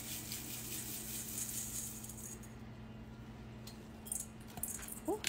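Beeswax pellets pouring out of a metal cup into a glass bowl of olive oil, a dense pattering rattle for the first two seconds or so, then a few scattered ticks as the last pellets drop.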